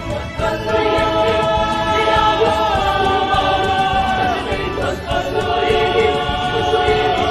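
A Filipino Christian worship song: voices singing the praise word "Bathala!" (God) in long held notes over backing music, in two phrases with a short break about two thirds of the way through.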